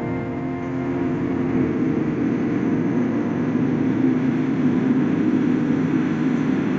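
Background music ends about half a second in, giving way to a steady low rumble of vehicle engines and road traffic.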